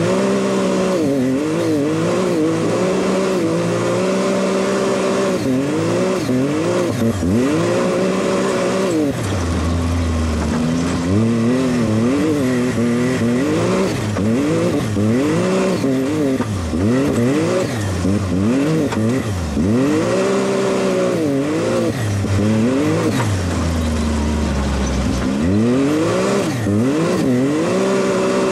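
Can-Am Maverick X RC Turbo RR side-by-side's turbocharged three-cylinder engine driven hard off-road, the revs rising and falling again and again as the throttle is worked.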